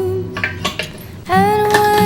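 Song music with a female voice singing a held note, pausing briefly. In the pause come a few light clinks, like hard kitchenware parts touching.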